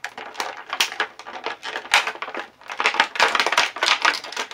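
Stiff clear plastic packaging crinkling and crackling in irregular bursts as an action figure is worked out of its plastic tray, loudest about three seconds in.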